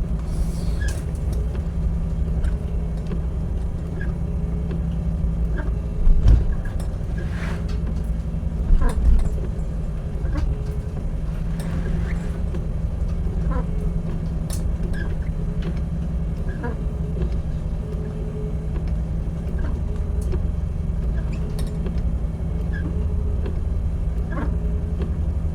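A boat's engine running steadily, heard on board as a deep, even hum. Two heavy low thumps stand out, about six and nine seconds in.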